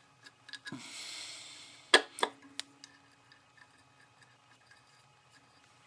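Small metal parts, engine cover nuts, being handled: a brief hiss about a second in, then around two seconds in three sharp clicks, one with a short metallic ring, and light scattered ticks.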